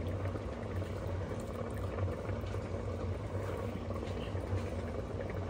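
Chicken biryani broth with rice boiling steadily in an open Instant Pot, a continuous even bubbling.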